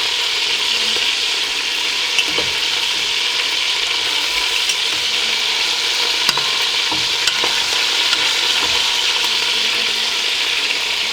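Chicken pieces frying skin-side down in hot oil in a pan: a steady sizzle with scattered small pops and crackles.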